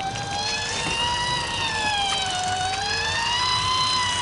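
Electric fishing reel whining steadily as it winds deep-drop line up, its pitch slowly rising and falling with the load.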